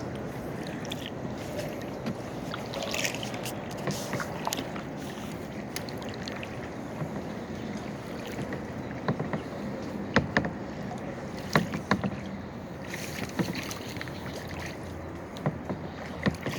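Kayak paddles dipping and splashing in river water, with a few sharp knocks and clicks, most of them in the second half.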